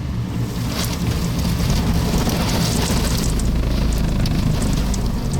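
Strong wind rushing and buffeting close to a wedge tornado, a loud steady roar of wind and rain with scattered sharp ticks, and a deep rumble that strengthens about three seconds in.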